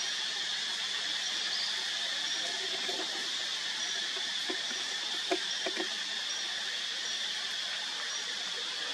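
Steady high-pitched insect chorus from the surrounding forest, with a faint short chirp repeating roughly once a second. A few soft clicks and knocks come around the middle.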